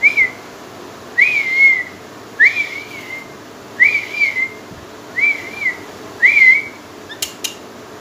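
Pet parrot whistling the same short phrase six times, about once a second: each note sweeps up and then wavers. A couple of sharp clicks follow near the end.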